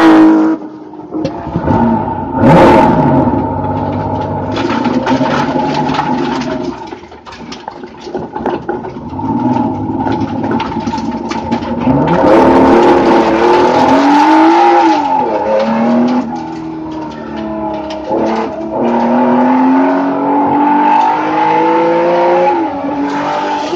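Race car engine heard from inside the cockpit, its note rising and falling repeatedly as it accelerates and backs off on track, with bursts of hiss and rattle.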